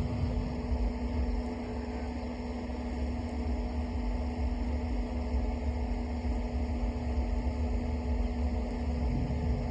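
WAG-9 electric locomotive running light, a steady low rumble under a steady electrical hum.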